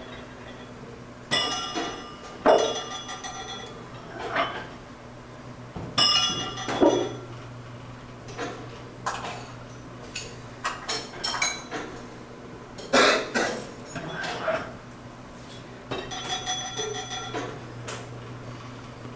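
Iron weight plates clanking and ringing as they are taken off a barbell's sleeves and set down, several separate clanks at irregular moments, over a steady low hum.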